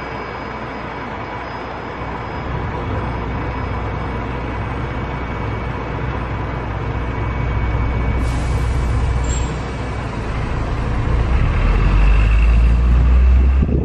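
Open-top double-decker tour bus with city traffic around it, heard from the upper deck: a steady rumble whose low end grows louder after about two seconds and is strongest near the end.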